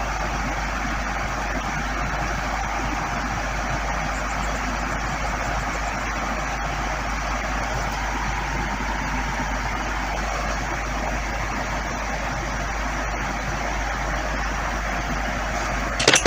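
Steady, even background noise: a constant hiss over a low hum, unchanging throughout.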